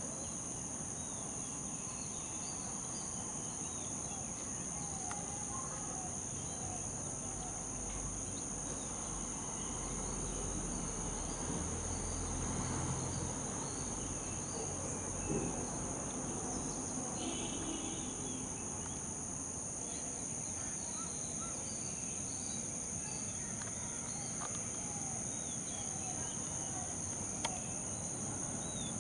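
Steady high-pitched drone of crickets or cicadas, with scattered faint bird chirps.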